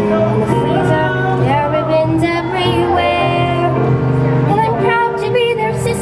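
A girl singing a show tune over instrumental accompaniment.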